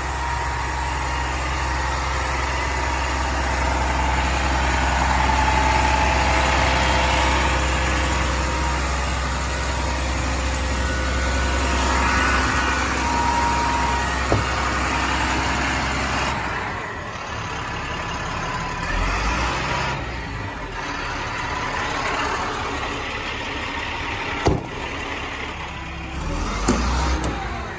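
International DT466 7.6-litre inline-six diesel running steadily at idle, its low hum weakening and turning uneven a little past halfway. A single sharp click sounds near the end.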